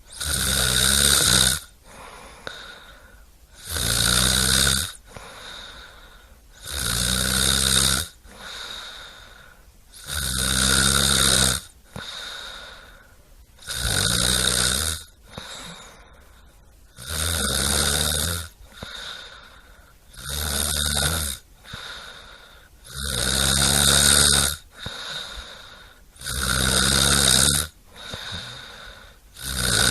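A person snoring loudly and steadily, one long snore about every three seconds, with quieter breaths between.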